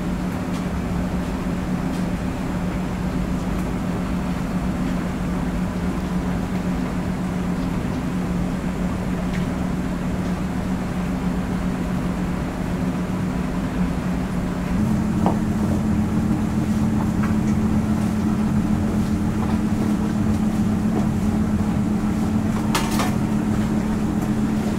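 Steady mechanical hum of ramen-shop kitchen equipment that steps up slightly in pitch and loudness about fifteen seconds in, with a few soft knocks of a kitchen knife on a plastic cutting board as braised pork is sliced.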